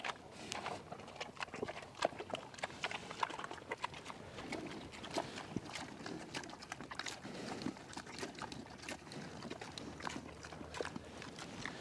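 Pigs moving about and grunting softly, with many small clicks and knocks throughout.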